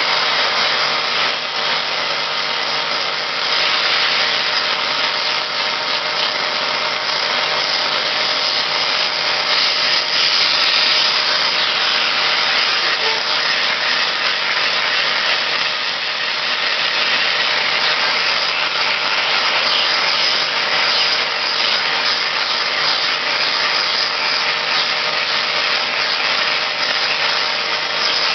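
Vacuum cleaner running steadily: a motor hum under a rush of air, while its nozzle is worked over a cat's fur.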